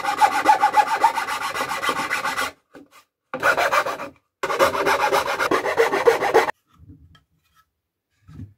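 Metal file rasping against the edge of the routed handle opening in a wooden router template, smoothing it as a finishing touch. It goes in three spells of rapid strokes, breaking off about two and a half and four seconds in and ending about six and a half seconds in.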